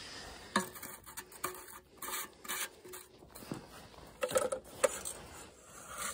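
Faint rubbing and scuffing with a few soft, scattered knocks: handling and movement noise around an engine that is not running.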